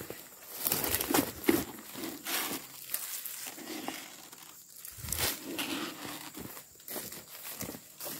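Footsteps crunching and rustling through dry leaf litter, dead palm fronds and weeds, at an uneven walking pace.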